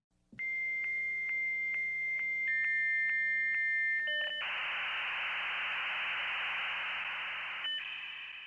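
Dial-up modem handshake: a steady high answer tone broken by regular clicks about twice a second, a step down to a lower tone, then several seconds of harsh hissing static that ends in a few overlapping tones.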